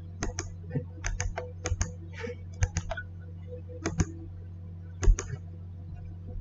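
Irregular keystrokes on a computer keyboard, some in quick pairs, the loudest about five seconds in, over a steady low hum.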